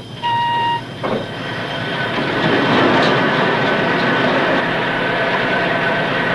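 A short steam whistle blast, then a steam donkey engine getting under way: a loud hissing, clattering machine sound that builds over a second or two and then runs steadily.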